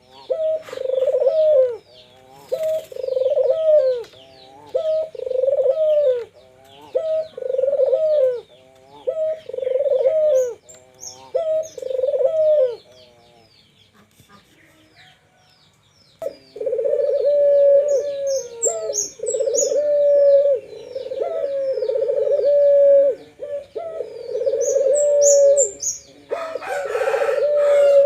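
Puter doves (ringneck doves) cooing in repeated phrases about a second apart, with a pause of about three seconds midway, after which the coos run longer. Faint high chirps of small birds sit behind them, and a short noisy burst comes near the end.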